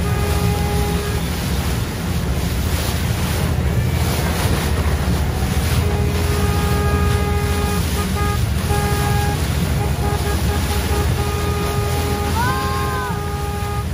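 Motorboat underway: a steady low rumble of the boat and rushing, splashing water, with wind buffeting the microphone. Steady horn blasts sound on and off for a few seconds at a time, and a short tone rises and falls near the end.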